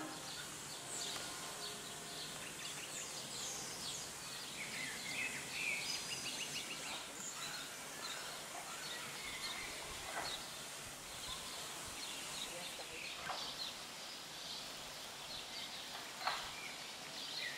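Outdoor ambience with several small birds chirping and trilling on and off over a steady background hiss.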